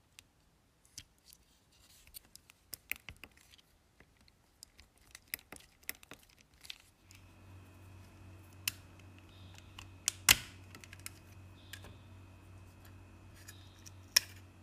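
Small plastic clicks and taps of game controller parts being handled: a battery lifted off the circuit board, then shell pieces pried apart with a plastic pry tool, with a few sharper snaps in the second half.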